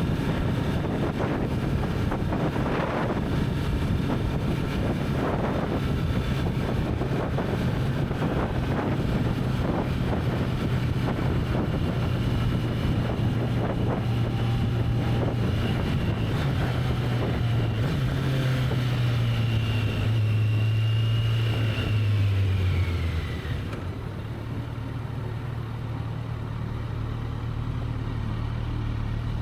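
Kawasaki Z900's inline-four engine on its stock exhaust, running steadily while the bike is ridden, with wind noise on the microphone. About three quarters through, the engine note falls and gets quieter as the bike eases off, then holds steady at the lower pitch.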